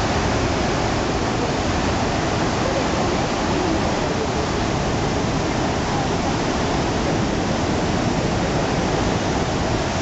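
Victoria Falls' huge curtain of falling water making a loud, steady, unbroken rush.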